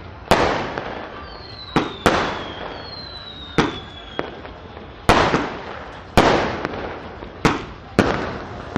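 Fireworks going off: about eight sharp bangs at uneven intervals, each trailing off with a crackling, echoing tail. Two high whistles falling in pitch sound during the first few seconds.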